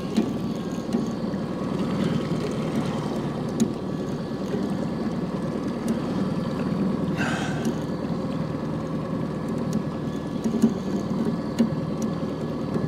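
Small boat motor running steadily at a slow trolling speed of about 1.7 mph, a low, even hum with a faint steady whine.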